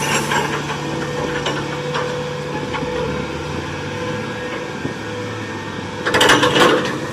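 Toy crawler crane being played with: a steady mechanical whirring, with a louder clattering stretch about six seconds in.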